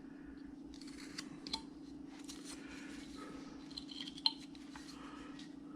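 Hand carving knife paring wood in short slicing cuts: soft scraping with a few small clicks, over a steady low hum.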